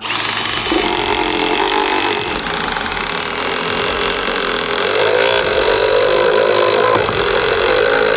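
Milwaukee cordless impact driver running continuously under load, driving a self-tapping structural screw through a steel hanger into a wooden ledger board. The long, hard drive pulls the board in and burns out the screw's tip.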